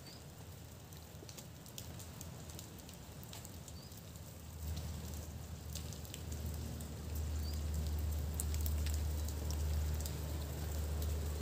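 Outdoor ambience in falling wet snow: scattered light ticks and patter over a faint hiss, with a low rumble that grows louder about halfway through.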